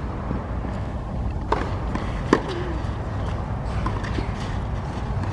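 Steady low outdoor rumble beside a tennis court, with two sharp knocks, the louder one about two and a third seconds in.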